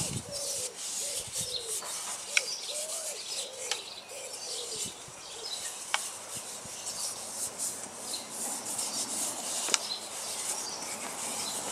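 Fingers rubbing olive oil into a hand-carved birch kuksa cup, skin sliding and rubbing on the oiled wood, with a few light clicks as the cup is handled. Birds call in the background, one giving a row of repeated low calls in the first half.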